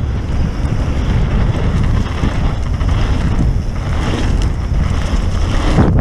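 Wind rushing over the microphone of a camera on a mountain bike riding fast down a dirt trail, with the rumble of the tyres rolling over the dirt underneath. There is a louder jolt just before the end.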